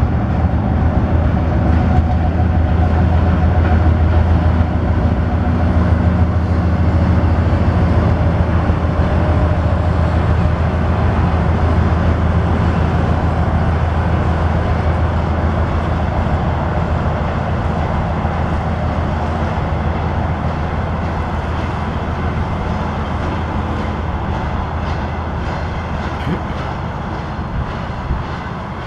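Diesel locomotive running under power with a steady low engine drone that slowly fades as the train moves away. Wheels click over rail joints near the end.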